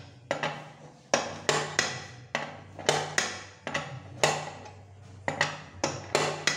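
Sharp metal clinks and clanks of a socket tool working on the oil-pan drain screw of a Typical industrial sewing machine as the screw is tightened, about two strikes a second in irregular groups, each ringing briefly.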